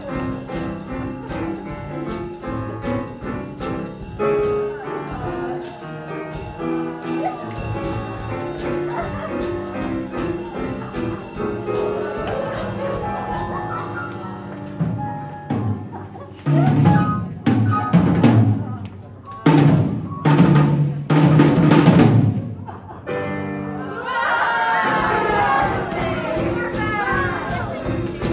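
Live band music with a drum kit keeping a steady beat. After about fifteen seconds the beat drops out and a few loud, separate bursts break in, then a softer passage follows near the end.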